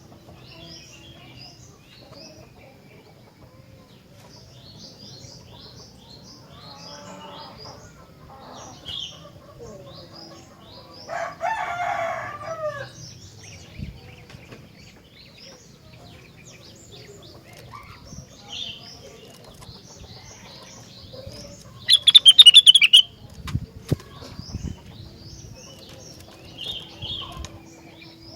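Rengganis bird singing: a steady stream of short high chirps, with a louder, lower burst of calls about 11 seconds in and a loud, rapid, high trill about 22 seconds in.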